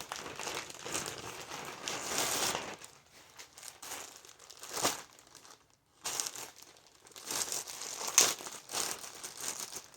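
Shipping packaging crinkling and tearing as a mail package is opened by hand. The rustling comes in bursts, goes quiet for a few seconds in the middle, then picks up again with a sharp crackle near the end.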